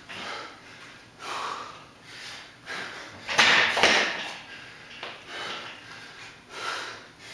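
Hard, gasping breathing of a man working through chest-to-bar pull-ups, with a breath coming about once a second. The loudest gasps come about three and a half seconds in, around when he drops off the bar to rest.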